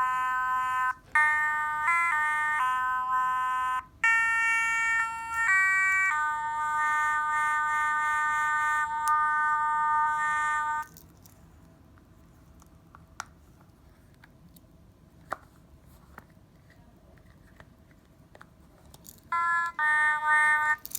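Mini Otomatone's buzzy electronic voice playing a run of short stepped notes for about eleven seconds. It then stops, leaving a few faint clicks, and a few more notes start near the end.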